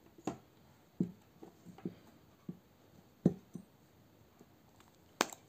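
Folding-knife parts and small tools handled and set down on a silicone work mat: a string of light, irregular knocks and clicks, with a sharper, brighter click near the end.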